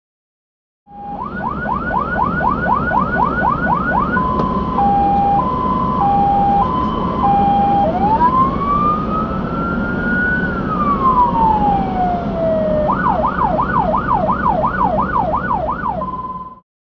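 Fire engine's electronic siren running through its cycle over the truck's engine and road noise: a fast yelp of about three to four sweeps a second, then a hi-lo two-tone, then one slow wail rising and falling, then the fast yelp again and a short steady tone before it cuts off suddenly.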